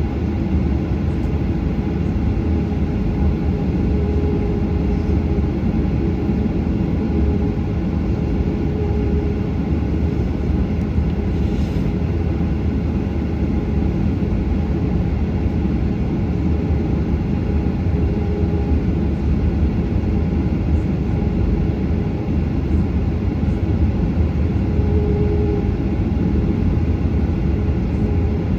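Steady jet engine and airflow noise inside the cabin of a Boeing 737, an even, unchanging drone with faint steady tones in it.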